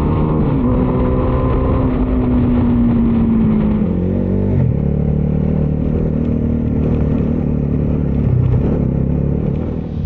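Bajaj Dominar 250's single-cylinder engine running, its pitch easing down over the first four seconds, then dropping sharply about halfway through and holding steady after that.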